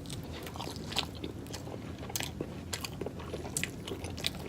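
A person chewing and biting food close to the microphone, with sharp, irregular mouth clicks roughly once a second.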